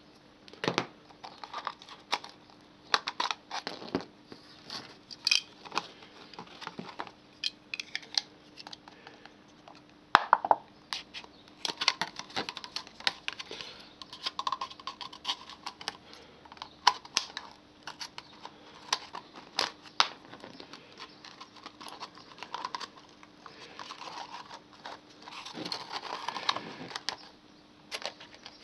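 A thin plastic drink bottle crinkling and crackling as it is handled and cut. Irregular sharp clicks and snips come throughout.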